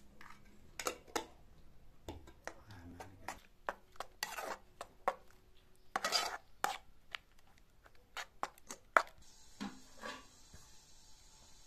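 A metal spoon clinking and scraping against a metal pan and a glass jar while salt is spooned in and grated tomato is stirred: a run of sharp clinks with a couple of longer scrapes. Near the end come a few louder metal knocks as a pot and its lid are handled.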